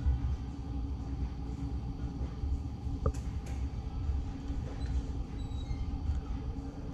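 Steady low background rumble, with a couple of faint clicks about three seconds in.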